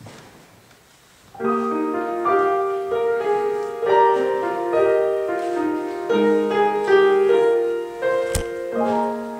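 Piano playing the introduction to a musical theatre song, coming in about a second in with sustained, shifting chords. A single sharp click sounds near the end.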